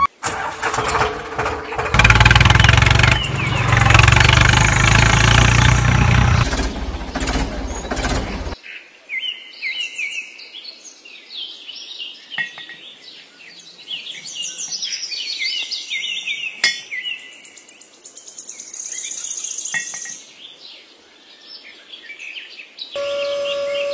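A loud, rough engine-like noise for about the first eight seconds, cutting off suddenly. Then birds chirp continuously as background ambience, with a few light clicks as small plastic model parts are handled and pinned together.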